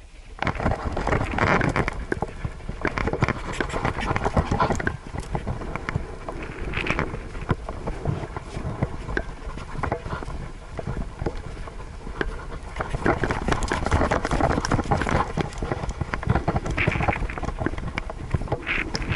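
Siberian husky running over grass with a camera strapped to it: dense, uneven thumps and rustling as its footfalls jolt the camera and mount. It starts suddenly about half a second in.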